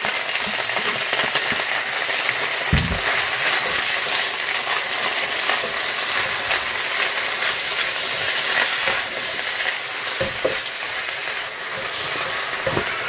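Freshly washed spinach leaves sizzling steadily in hot oil in an enamel wok as they are turned over with a wooden spatula. There is a dull knock about three seconds in.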